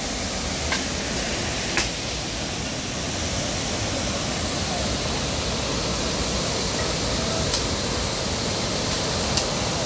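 Steady rushing of water flowing over a dam, with a few faint clicks scattered through it.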